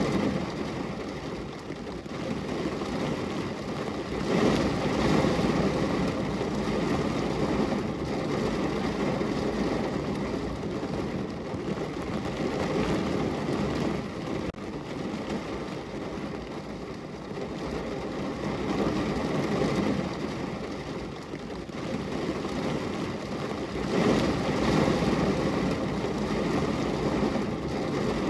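Steady rain falling on a window: a dense hiss with a low rumble under it. It swells louder about four seconds in and again near the end.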